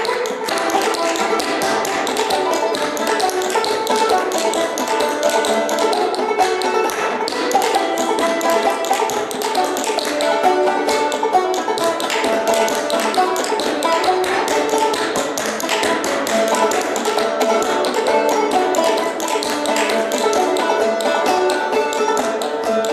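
A banjo played as a lively tune together with the player's own clogging: rapid, steady foot taps on a wooden dance board keeping time under the plucked notes.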